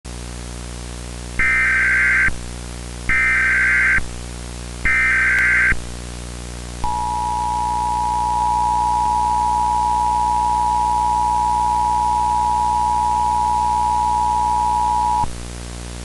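Emergency Alert System alert: the SAME data header sounds as three short digital bursts about a second apart. Then the EAS two-tone attention signal holds steady for about eight seconds and cuts off, over a steady low hum.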